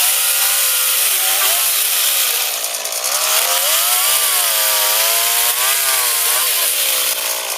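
Small engine of a motorised oil palm cutter running and revving up and down, its pitch rising and falling several times, with a loud hiss over it.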